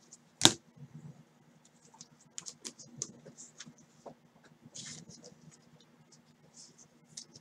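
Scattered light clicks and soft rustles of small objects being handled at a desk, with one sharper click about half a second in.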